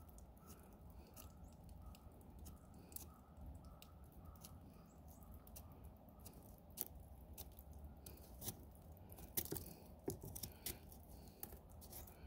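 Faint, irregular crackles and ticks from snow pressed against a hot stainless steel 3D printer nozzle to quench it, with a few sharper clicks in the second half.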